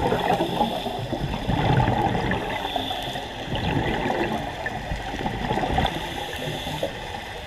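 Scuba regulator exhaust bubbles gurgling, heard underwater, swelling and fading in several surges as the diver breathes out.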